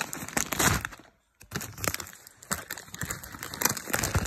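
Crisp packet crinkling and rustling as a hand rummages inside it for a crisp. The rustling breaks off for a moment about a second in, then goes on in smaller crackles.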